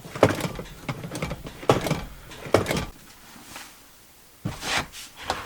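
A few separate clunks and knocks, with rustling in between, from handling parts around the handbrake in a car's cabin.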